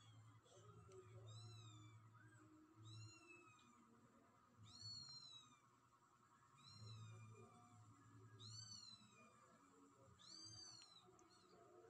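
Kittens mewing faintly over and over, short high-pitched calls that rise and fall, one about every two seconds.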